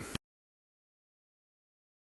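Silence: the audio cuts off a fraction of a second in, after a faint trailing sound and a small click at the end of a burp.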